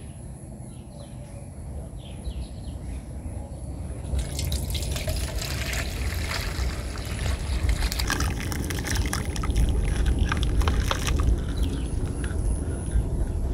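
Thin rice curry being poured from a kadai into a stainless steel bowl: liquid slopping and splashing into the bowl, with many small clicks and scrapes of the pan against the bowl. It grows louder about four seconds in and eases off near the end.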